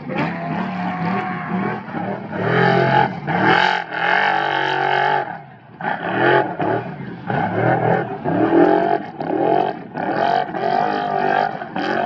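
Off-road race vehicle engine revving hard, its pitch climbing and dropping again and again as the throttle opens and lifts, with a short lull about five and a half seconds in.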